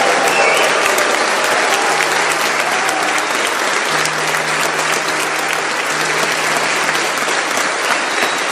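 Large seated audience applauding, many hands clapping steadily.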